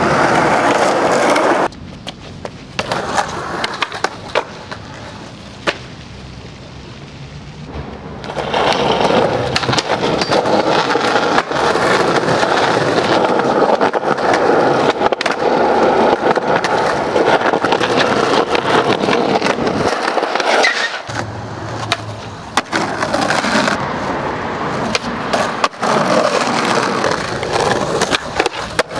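Skateboard wheels rolling over concrete and pavement, broken by sharp clacks from the board. The rolling noise jumps in loudness a few times, about two seconds in, about eight seconds in and again near twenty seconds, as one skate clip cuts to the next.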